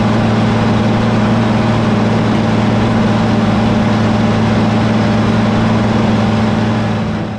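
International Harvester 1466 tractor's turbocharged six-cylinder diesel running steadily at a constant pitch, heard close up while pulling an IH 720 five-bottom moldboard plow through the soil. The sound eases off near the end.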